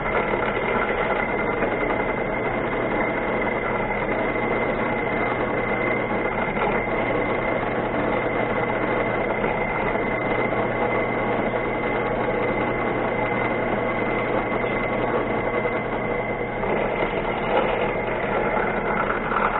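A power machine tool running steadily while a drill bit bores through a metal part lubricated with cutting oil; the machine stops at the very end.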